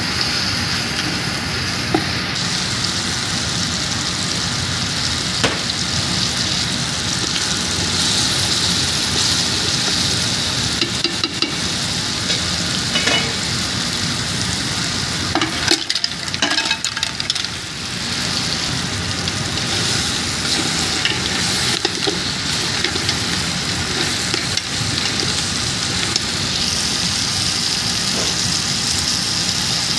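Garlic and cherry tomatoes sizzling steadily in hot oil in a metal pot, with a spatula scraping and clicking against the pot as they are stirred.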